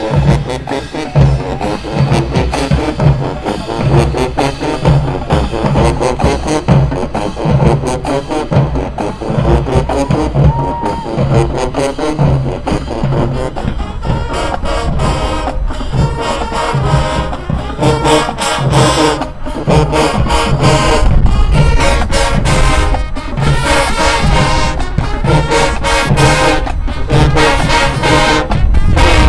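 Marching band playing: brass horns over a steady bass beat, growing fuller and louder about halfway through.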